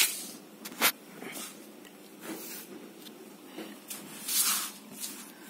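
Handling noise of paper and a felt-tip marker: a few short rustling, hissing scrapes, with a sharp tap just before the first second.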